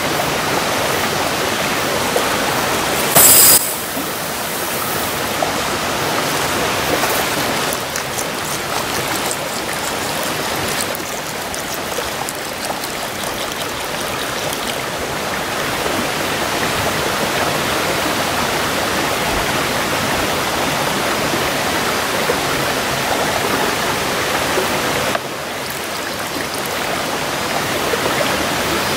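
Steady rush of flowing stream water. About three seconds in there is a brief, loud, sharp rattle, and later water is poured into rice in a cast iron pan.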